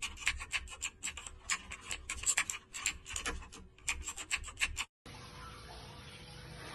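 A quick run of scratchy rubbing strokes, several a second, that cuts off suddenly about five seconds in, followed by a faint steady hiss.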